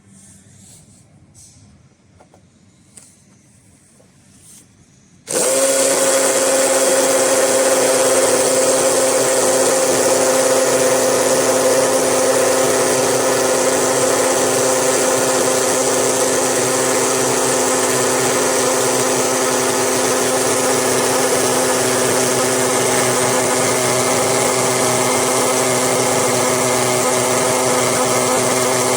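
A few faint clicks of handling, then about five seconds in an electric drill starts suddenly and runs at a steady speed with an even whine.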